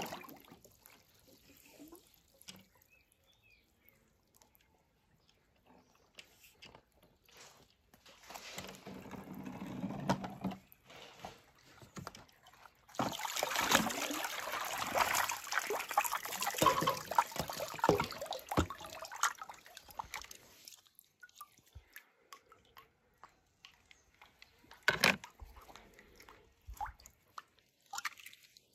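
Water splashing and sloshing as toy cars are moved about in it, with a short stretch of splashing, a longer busy one in the middle, and scattered drips and small clicks before and after.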